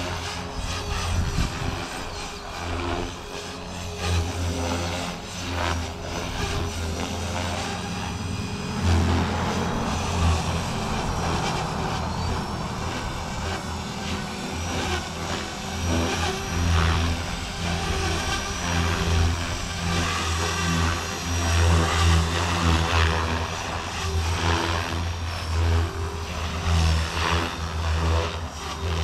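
Blade Fusion 360 electric RC helicopter in flight: steady rotor buzz with a high electric-motor whine over it, its level swelling and dipping as it flies about.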